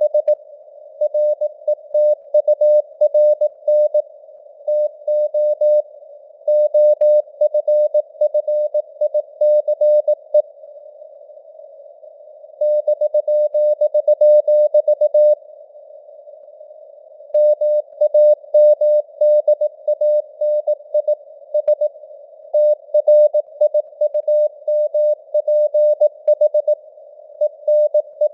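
Morse code (CW) at 18 words per minute: a single mid-pitched tone keyed on and off in dots and dashes, over a narrow band of simulated radio hiss. The signal strength fades up and down (QSB), and there are longer gaps of a second or two between groups.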